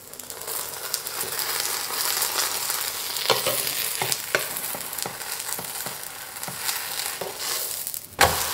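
A spinach-and-egg pancake sizzles in oil on an electric griddle. A spatula makes a few sharp scrapes and ticks as it works under the pancake. Just before the end the pancake is flipped onto its oiled side with a slap, and the sizzling jumps louder.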